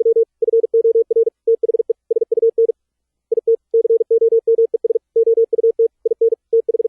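Fast Morse code (CW) sent as a single steady, fairly low-pitched tone keyed in rapid dits and dahs, with one short pause a little before the middle.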